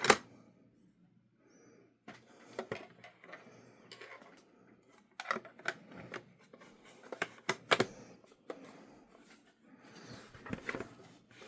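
Handling noises from unboxing a UPS: irregular clicks and knocks with soft rustling as the unit, its battery and the packaging are moved about.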